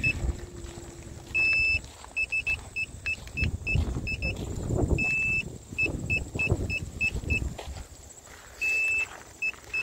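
Electric scooter beeping in a quick run of short beeps, about three a second, broken by a few longer beeps, over low rumbling handling and wind noise. The scooter has just cut out and powered off.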